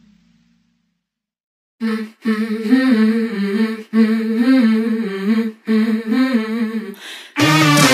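Silence for nearly two seconds, then a voice humming a wavering melody in short phrases; a music track with a beat cuts in just before the end.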